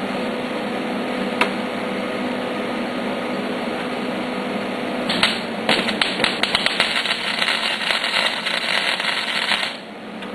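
Wire-feed (MIG) welder arc laying a tack weld on a steel-tube frame corner. About five seconds in, the arc strikes with sputtering pops, then settles into a dense, even crackle for about four and a half seconds and cuts off suddenly.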